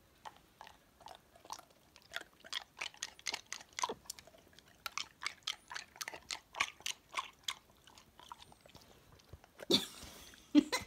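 A border collie crunching ice cubes in its teeth: a quick run of sharp crunches, about three a second, that stops after about seven seconds. Two louder, noisier bursts follow near the end.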